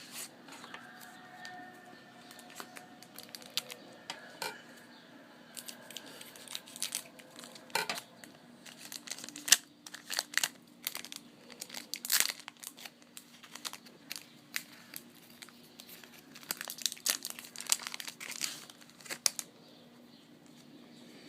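Trading card pack wrappers being torn open and crinkled, with a dense run of crackles and rustles that stops a couple of seconds before the end.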